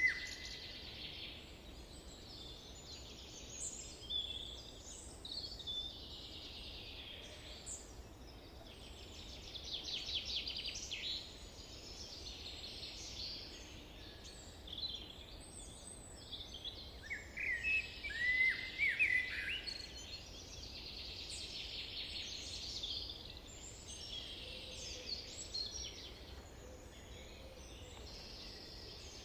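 Several wild birds singing and calling at once, short chirps and quick trills overlapping, with a louder flurry of calls about two-thirds of the way through.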